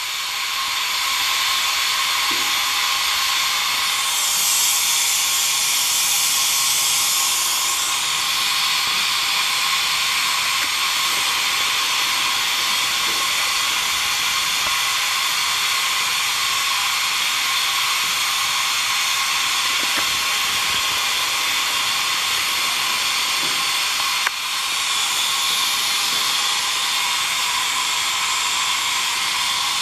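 Steady hiss of steam escaping from Rogers-built steam locomotive No. 3 standing under steam. The hiss swells brighter for a few seconds about four seconds in, and there is one sharp click near the end.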